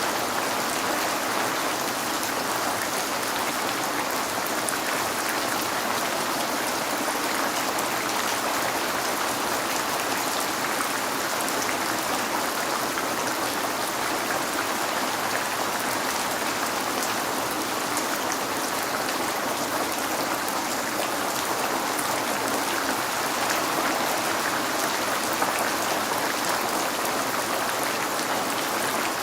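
Steady heavy rain falling, a dense even patter of drops on a window.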